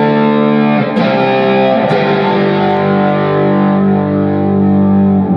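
Custom Frankenstrat tribute electric guitar played through an 80s-style distorted amp tone on a Fractal modeler: a chord rings out, with new notes struck about a second and two seconds in, and the chord sustains to the end.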